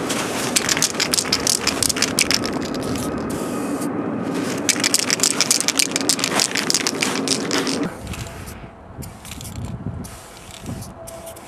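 Aerosol spray-paint can rattling in quick sharp clicks, with hissing, over a steady low hum. There is a short pause about four seconds in, and the sound drops much quieter about eight seconds in.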